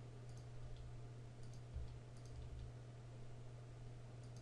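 Faint, scattered clicks of a computer keyboard and mouse over a steady low hum.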